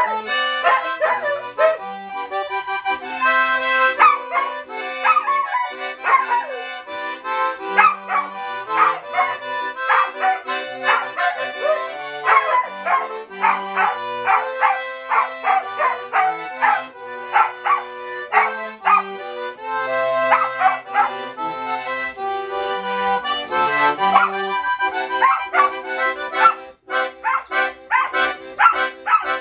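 Accordion playing a lively vallenato tune, with a dog howling along to it in long, gliding cries.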